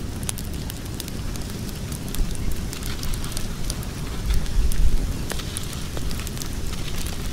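Wood fire crackling, with many sharp pops over a low rumble that swells briefly about four and a half seconds in.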